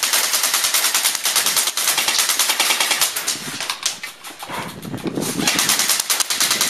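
G&G Combat Machine airsoft electric rifle firing on full auto in long, rapid bursts, with a short break about four seconds in.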